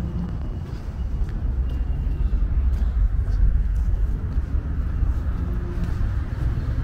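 Outdoor city street ambience: a steady low rumble of road traffic.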